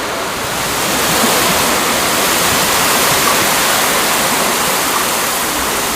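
Strong wind blowing: a steady rushing noise that swells slightly about a second in.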